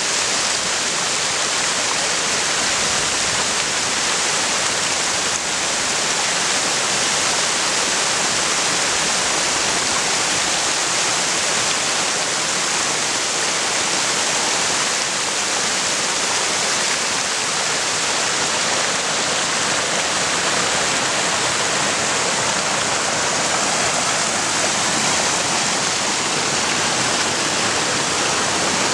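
Stream cascading over rock ledges in a small waterfall: a steady, unbroken rush of water.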